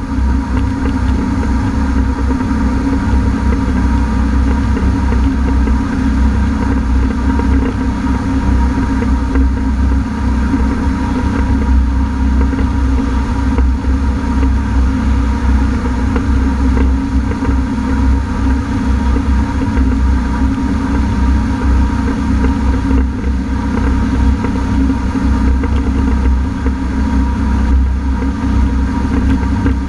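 Honda F-12X AquaTrax personal watercraft's engine running steadily, a constant low rumble with a steady drone above it.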